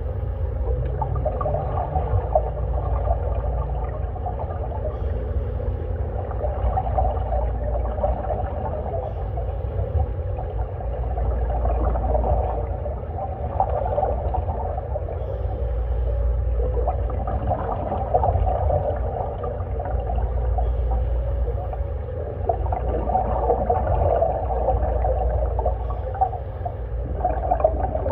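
Muffled underwater sound: a steady low rumble with crackling bursts of bubbles every five or six seconds as a scuba diver on a small portable tank exhales through the regulator.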